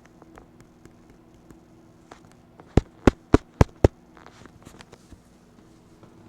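Five sharp clicks or knocks in quick succession, about four a second, with fainter scattered clicks around them over a faint steady hum.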